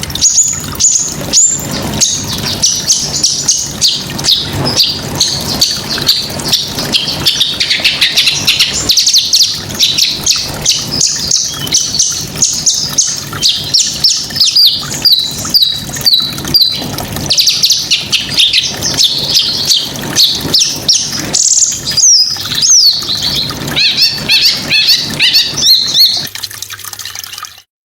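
A small songbird singing a fast, unbroken string of sharp, high chirps and trills. The song cuts off abruptly near the end.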